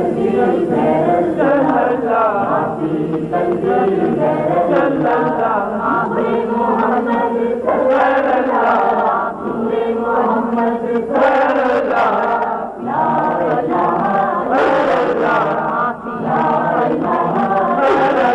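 A group of voices chanting together in a steady, continuous chant.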